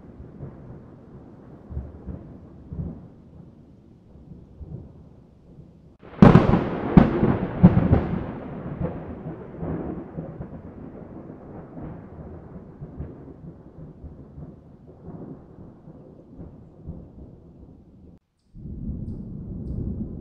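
Thunder: a low rolling rumble, then a sudden loud crack about six seconds in that rolls on and fades over several seconds. Near the end the sound cuts out for a moment and the rumble starts again.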